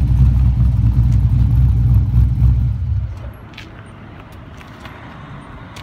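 Straight-piped LS1 5.7-litre V8 in a Nissan 240SX running steadily at idle, with a heavy low exhaust note, then switched off about three seconds in.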